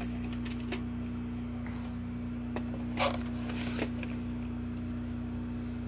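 VHS cassette and tape case handled and set down: a few faint plastic clicks and a brief rustle about three seconds in, over a steady low hum.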